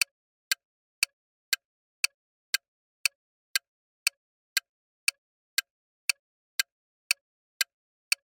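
Countdown timer ticking sound effect, a clock-like tick about twice a second, marking the seconds left to answer a quiz question.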